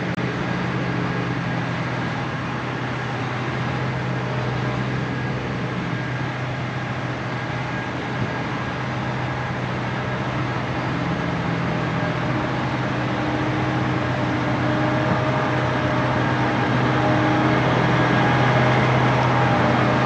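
John Deere 7550i self-propelled forage harvester running as it drives toward the listener: a steady engine drone with a few thin, higher whining tones over it, growing gradually louder toward the end.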